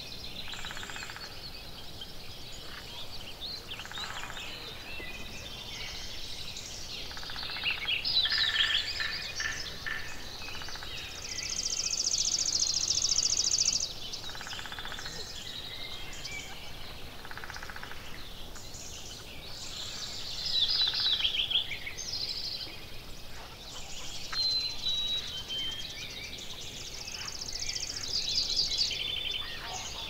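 Mixed songbird chorus: several birds singing and calling over one another in short phrases and chirps. The loudest is a high, rapid trill lasting about two seconds near the middle, with a similar trill near the end.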